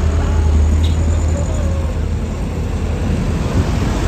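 Tour bus engine running with a steady low rumble.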